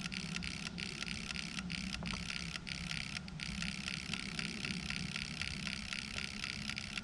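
Built-in automatic antenna tuner of a Xiegu X5105 HF radio clicking its relays irregularly as it searches for a match on the 20-metre band, over a steady hiss.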